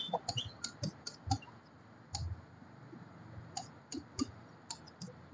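Marker tip tapping and clicking against the writing board as words are written: an irregular run of quiet, sharp clicks in small clusters.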